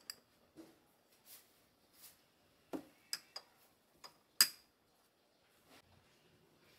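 Glass spice jars clinking against each other as a hand moves and sets them on a shelf: about six sharp clinks, the loudest a little over four seconds in, with soft brushing sounds between.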